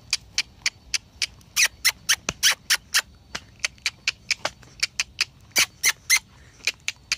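A horse's hooves clip-clopping on hard ground: a run of sharp, irregular clicks, about four a second.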